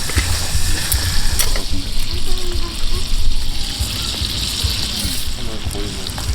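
Food sizzling in a pan on a camp stove: a steady hiss of frying pork and kimchi for kimchi stew.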